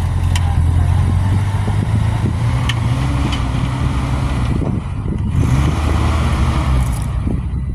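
1987 Toyota pickup's stock 22RE four-cylinder engine running steadily at low revs as the truck crawls up a steep rocky gully, with a few sharp clicks from rocks under the tyres.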